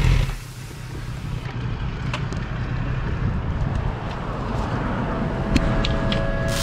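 Wind rushing over the microphone on a moving motorcycle, with a low engine rumble underneath and a few light clicks.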